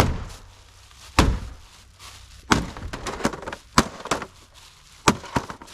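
An axe smashing into a flat-screen monitor or TV, five heavy blows about 1.3 s apart, with smaller cracking and clattering between them.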